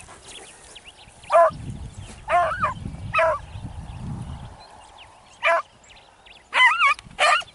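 Beagle hounds baying in short, separate yelping calls, about seven of them, with two close together near the end. It is the cry hunting beagles give while working a rabbit's scent.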